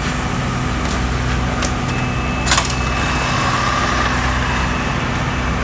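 An engine running steadily at idle, a low, even rumble with a regular pulse, broken by a single short, sharp clank about halfway through.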